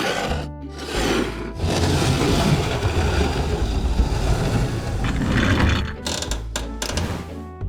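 Furniture foley: a furniture mechanism moving with a continuous grainy mechanical rattle lasting about four seconds, with shorter knocks before it and near the end.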